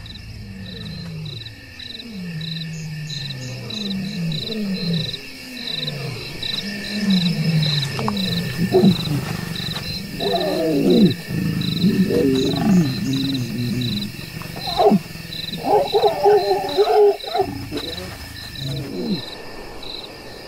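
Lions calling, a male with a lioness in heat: a run of low, falling moans in the first half, then louder, harsher growls from about ten seconds in. Steady cricket chirping throughout.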